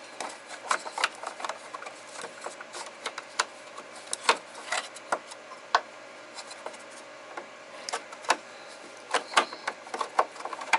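Irregular clicks, taps and light knocks of a snap-in refrigerator part being handled and pushed as someone tries to get it back into place. The clicks come in uneven clusters, thinning out in the middle.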